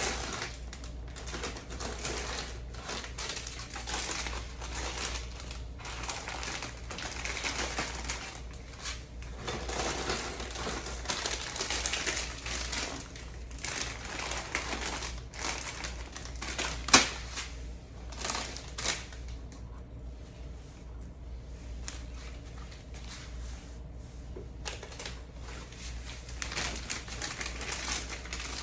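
Snack packets being handled and restocked: plastic wrappers crinkling and packs clicking and clattering against each other and their containers in quick irregular taps, with one sharp knock about seventeen seconds in. A steady low hum runs underneath.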